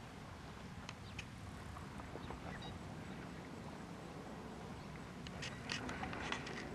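Outdoor ambience: a steady low rumble with scattered short clicks and chirps, which grow into a flurry of sharp sounds about five seconds in.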